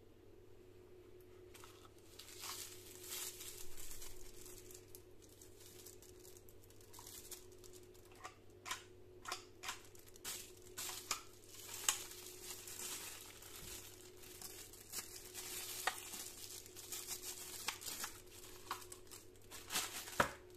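Handling of a plastic-and-aluminium telescopic pick-up grabber tool: plastic wrapping crinkles for a few seconds, then a run of sharp plastic clicks and knocks from about eight seconds in as its parts are worked.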